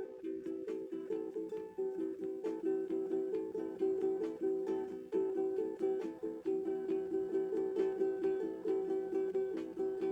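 Guitar played alone, a quick repeating pattern of plucked notes, several a second.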